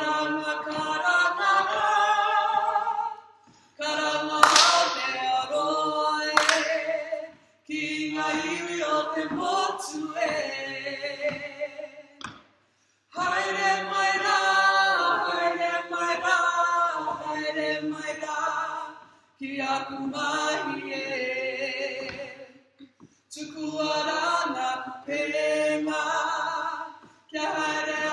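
Kapa haka group of men and a woman singing a waiata in Māori, unaccompanied, in phrases broken by short pauses every few seconds. Two sharp, loud sounds cut through the singing about four and six seconds in.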